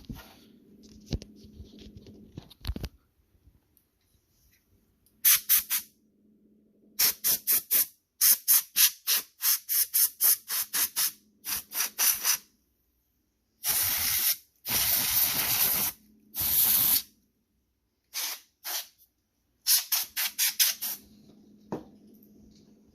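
Compressed air hissing in quick runs of short puffs, with a few longer blasts midway, blowing dust and shredded fan debris out of a laptop's bottom cover.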